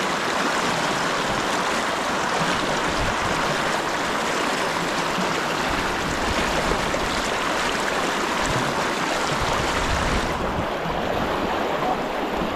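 River current rushing over a shallow riffle close by, a steady broad rush of water. About ten seconds in the hiss turns duller.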